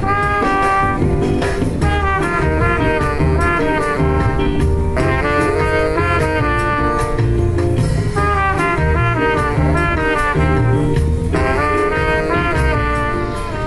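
Trumpet and saxophone playing a jazzy melody together, the phrases breaking off briefly about two seconds in, near five seconds and past eleven seconds, over a bass-heavy backing from a loudspeaker.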